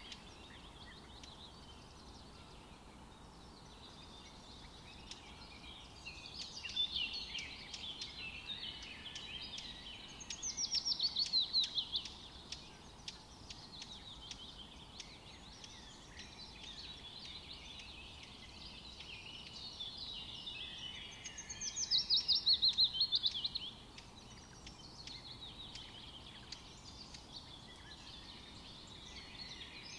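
Songbirds chirping and singing throughout, with two louder runs of fast descending trills, one about a third of the way in and one a little past the middle.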